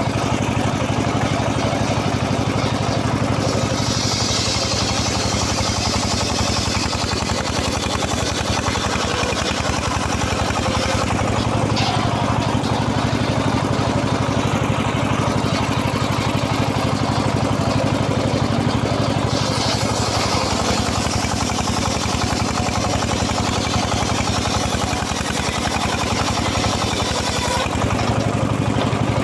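An engine running steadily without a break. A brighter hiss joins it from about four to seven seconds in, and again from about twenty seconds until near the end.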